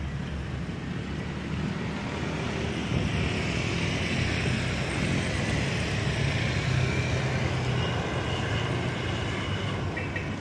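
Road traffic: a motor vehicle passing, its noise growing louder through the middle and fading near the end, over a steady low rumble.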